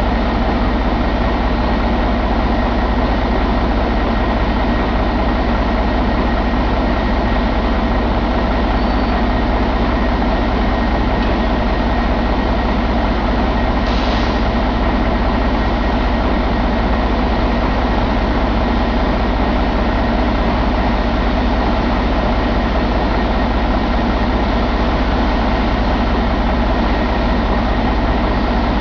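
2007 Mercedes-Benz MBE4000 inline-six diesel engine idling steadily.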